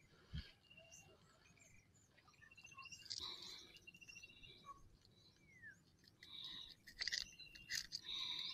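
Faint bird calls: short high trills repeated a few times and a falling whistle, with a few sharp clicks near the end.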